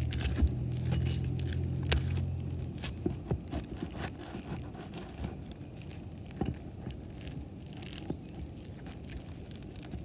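Metal shingle snake scraping and clinking under asphalt shingles as it works at the roofing nails, in scattered clicks and scrapes. A low steady hum underneath stops about three seconds in.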